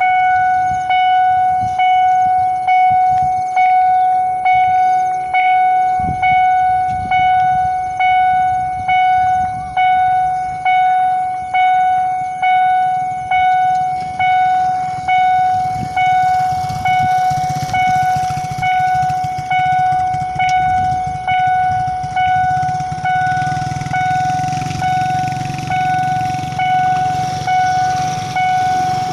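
Railway level-crossing warning bell ringing steadily, about one decaying strike a second: the crossing signal is active. A low rumble builds beneath it from about halfway through.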